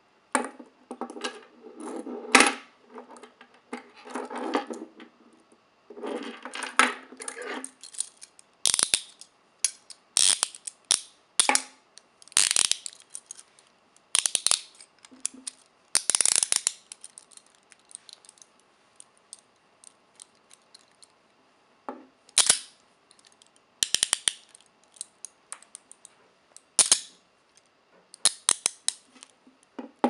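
Steel chain-linked police handcuffs being handled: the chain links rattle and clink for the first several seconds. Then come scattered sharp metallic clicks as the ratcheting cuffs are swung and locked around the wrists.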